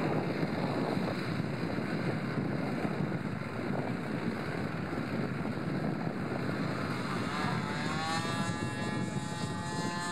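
Wind buffeting the microphone, then, about three-quarters of the way in, a radio-controlled model aircraft's motor and propeller starting up: a whine that rises in pitch and then holds steady.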